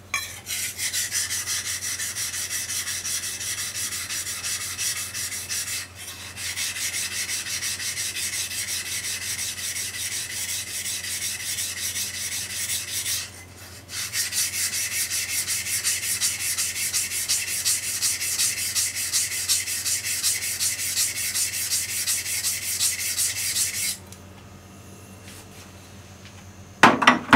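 A deba knife being sharpened on its single bevelled side against a water-soaked whetstone: rapid back-and-forth rasping strokes of steel on wet stone. The strokes pause briefly twice and stop a few seconds before the end, followed by a short loud clack.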